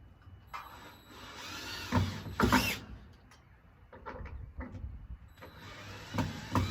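Power drill driving screws into wood, its motor whining and changing pitch with a couple of loud jolts, followed by scattered clicks and knocks of handling.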